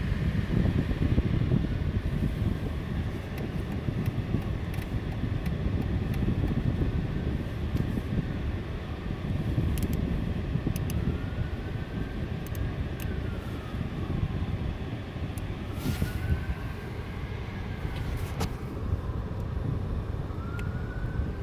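Dodge Avenger windshield wipers sweeping across the glass, each pass giving a faint squeak that rises and then falls in pitch, about every four seconds. A steady low rumble runs underneath, with a few sharp clicks in the second half.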